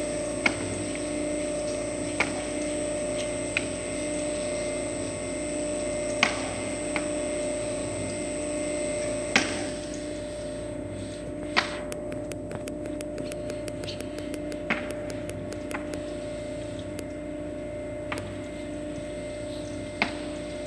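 Electric screw-type oil press cold-pressing flax seed, running with a steady hum. Sharp cracks come every one to three seconds, with quicker, fainter ticking in the second half.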